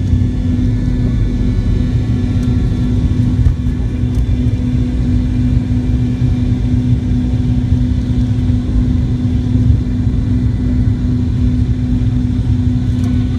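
The engines of a McDonnell Douglas MD-88, its two rear-mounted Pratt & Whitney JT8D turbofans, running at takeoff power, heard from inside the cabin. A loud, steady low rumble and drone with a constant hum through it as the jet rolls down the runway and lifts off.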